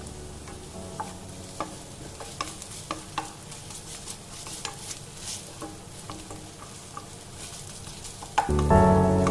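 Onions, green chillies and ginger-garlic paste sizzling in butter in a kadai while a spoon stirs them, with short scrapes and taps of the spoon against the pan every half second to a second. Music comes in loudly near the end.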